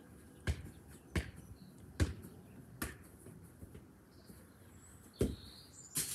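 Football being kicked around on a garden lawn: a series of sharp thuds, four at a steady pace in the first three seconds, then two more about five and six seconds in.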